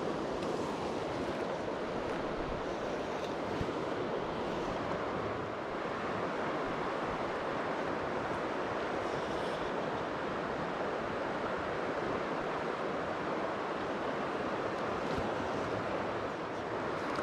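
Stream running in high water: a steady rush of fast-flowing water.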